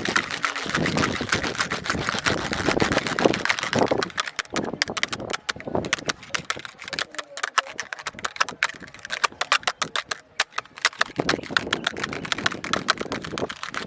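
Fingers tapping rapidly on a plastic kolukattai (modak) mould, a fast run of small clicks, with a rougher scratching noise mixed in during the first few seconds and near the end.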